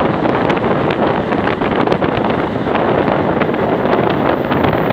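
Loud, steady wind rush on a microphone held at the open window of a moving passenger train, mixed with the train's running noise on the track and irregular short clicks.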